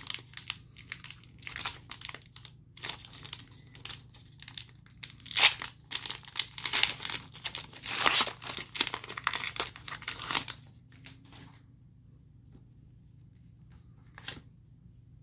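Foil wrapper of a Pokémon TCG Shining Fates booster pack being torn open and crinkled as the cards are slid out. The crackling stops about ten seconds in and it goes quiet, apart from one brief rustle near the end.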